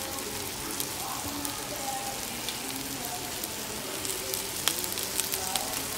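Sauce sizzling and spattering on a hot iron steak plate under the steak and hamburger patty: a steady hiss with scattered crackles, which grow denser near the end.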